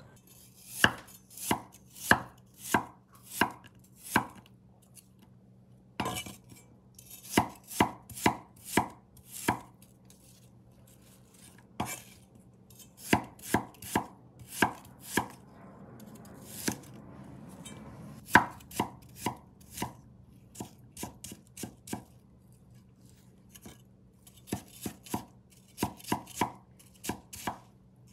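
Chinese cleaver slicing and dicing peeled water chestnuts on a wooden chopping board: runs of sharp knocks of the blade on the board, about two a second, with short pauses between runs.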